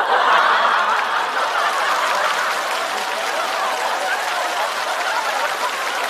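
Studio audience laughing and applauding, breaking out suddenly and holding steady.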